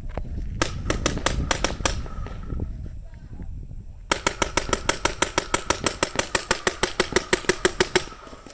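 2002 Warped Sportz Dark Angel LCD, an electronic paintball marker, firing: a burst of about ten shots in a second and a half, then, about four seconds in, a long rapid string of some thirty shots at roughly eight a second.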